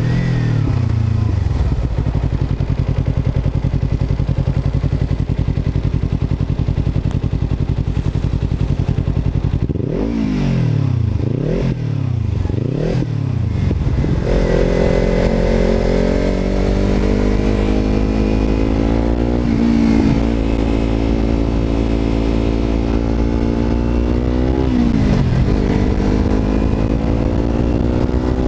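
Kawasaki motorcycle engine heard from the rider's position while riding: its pitch falls at the start as it slows, then runs low and steady. About ten seconds in it rises and falls quickly three times, then settles into a steady higher note that climbs slowly, dipping briefly near the end.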